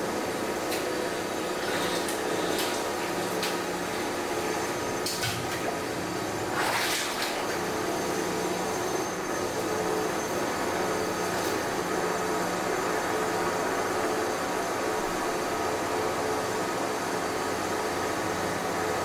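Construction-site noise: a steady machine drone with a few scattered sharp clicks and knocks, and a brief hiss about seven seconds in.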